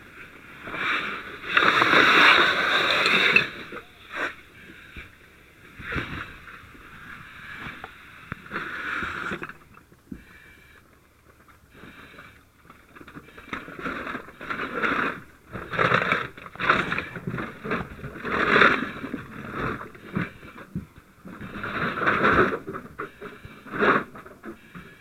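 Heavy breathing hissing through a firefighter's breathing-apparatus mask, loud breaths every second or two with pauses between, over knocks and scraping of gear and debris.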